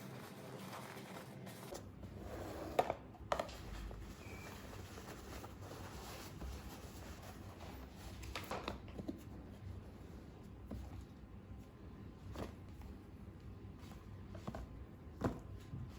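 Light clicks and knocks of household items being handled and set down, about half a dozen, the sharpest about three seconds in and near the end, over a low steady background noise.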